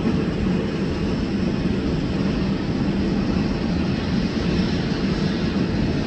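Jet airliner's engines running, a steady, loud rumble with no clear rise or fall.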